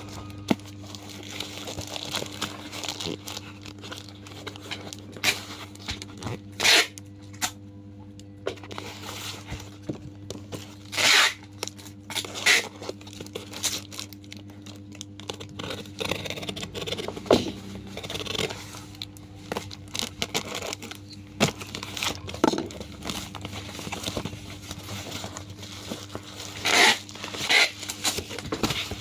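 Packaging being torn open and crumpled by hand: irregular tearing and crinkling in short, sharp bursts, over a steady low hum.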